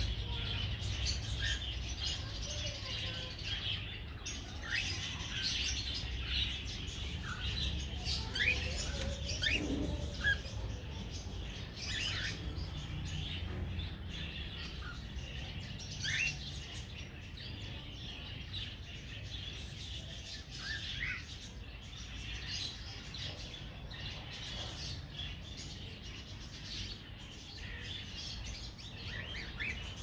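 A flock of caged cockatiels chirping and chattering without a break, with many short rising whistles, over a low steady rumble.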